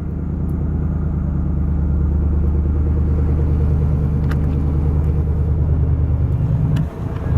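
An engine running steadily nearby, a low even drone, with a brief drop in level near the end.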